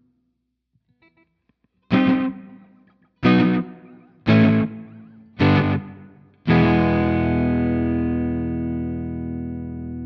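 Electric guitar played through a clone of the Ibanez EM-5 analog delay pedal: after a short pause, four chords strummed about a second apart, each dying away, then a final chord left to ring and slowly fade.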